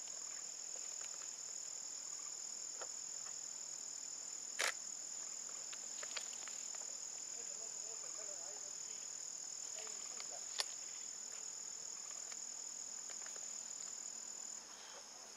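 Steady high-pitched chorus of insects, with two sharp clicks, one about a third of the way in and another about two-thirds in.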